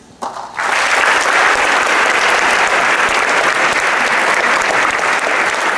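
Audience applauding, the clapping starting abruptly about half a second in and holding steady.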